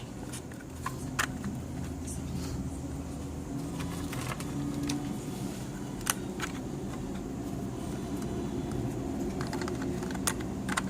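Scattered light clicks and taps of small parts and tools being handled on a workbench, over a steady low hum.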